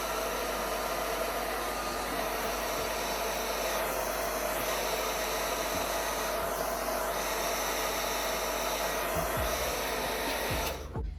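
Handheld hair dryer blowing steadily, drying the wig-holding spray just applied along the hairline. It is switched off suddenly near the end.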